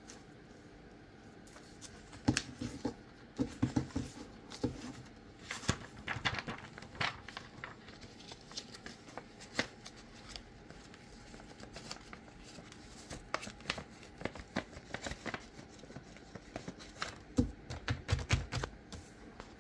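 Desk-work handling noises: scattered clicks and taps with short bursts of paper rustling and a few low thuds, coming in irregular clusters.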